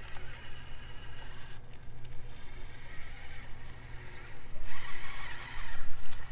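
Micro-scale (SCX24-size) RC rock crawler driven by a prototype Little Guy Racing Parts brushless motor on 3S, its motor and geared drivetrain whining as it climbs over rocks. It gets louder and higher about four and a half seconds in as the throttle comes on.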